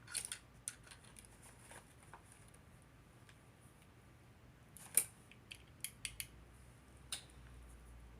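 Scattered light clicks and rattles of chargers and a tripod being handled and packed into a small bag. The sharpest click comes about five seconds in, with a quick cluster just after it.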